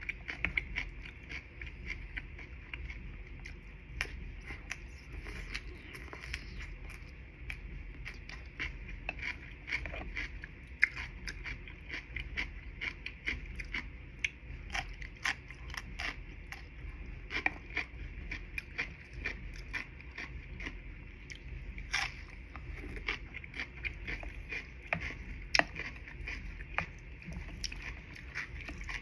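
Close-miked mouth sounds of a person chewing food, with many small clicks and smacks over a steady low hum.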